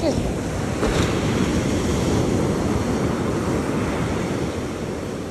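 Ocean surf: a wave breaking and washing up the beach, growing louder about a second in and slowly easing off, with wind buffeting the microphone.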